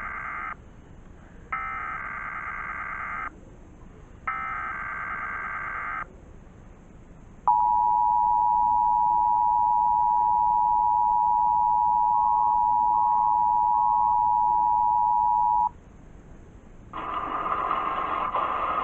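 Emergency Alert System SAME header: three short, shrill buzzy data bursts about a second apart, the first already under way. Then the EAS two-tone attention signal sounds for about eight seconds and stops, announcing the alert, here a required monthly test. A voice message begins near the end.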